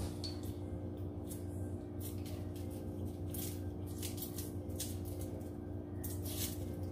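Steady low hum with faint, scattered small clicks and rustles of hands working food at a kitchen counter.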